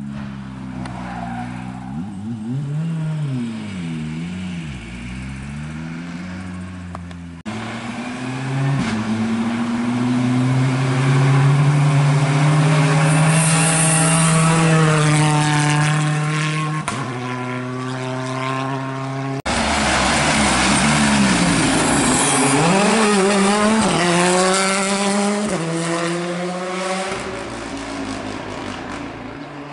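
Hyundai i20 rally car's turbocharged four-cylinder engine revving hard as it passes, pitch climbing through each gear and dropping on shifts and lifts. The sound breaks off abruptly twice and starts again on another pass.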